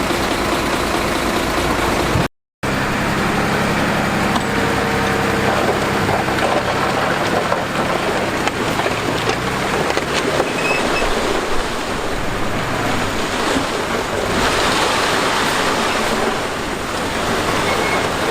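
Heavy construction machinery running with a steady engine drone, broken by a sudden moment of total silence about two seconds in, and a rougher rushing noise building up in the last few seconds.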